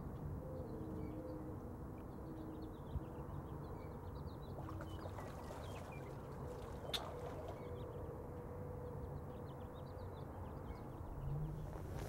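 Quiet outdoor background: a low steady rumble with faint high chirping scattered through it, and a single sharp click about seven seconds in.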